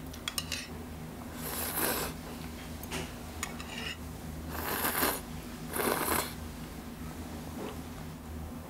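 A person slurping curly ramen noodles, three slurps about a second and a half in, near five seconds, and near six seconds, with a few light clicks at the start, over a steady low room hum.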